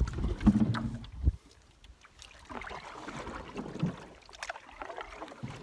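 Wooden canoe being paddled: water lapping and splashing around the hull and paddle, with a few small splashes from the strokes. A loud low rumble, like wind on the microphone, fills the first second and a half, then drops away.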